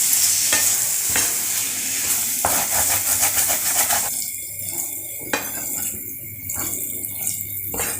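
Prawns frying in an onion-tomato masala, sizzling as a spatula stirs and scrapes them around the pan. About halfway through the sizzle falls away, and a few sharp metal clinks follow.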